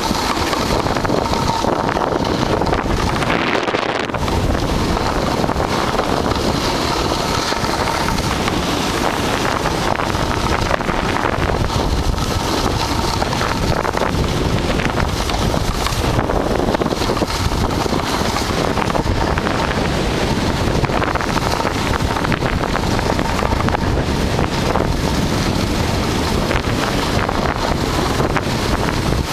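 Steady, loud wind rush buffeting the microphone of a snowboarder riding downhill, mixed with the board scraping and carving over packed, groomed snow.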